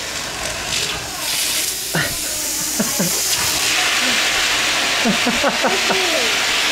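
Vacuum cleaner running with a steady rushing hiss while sucking up a little girl's hair, with a few short high vocal sounds from the child over it, about two seconds in and again near the end.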